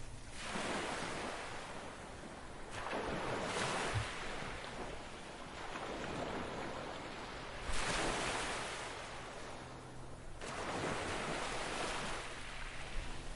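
Ocean waves breaking and washing in: four surges of rushing water, each coming in quickly and then fading away.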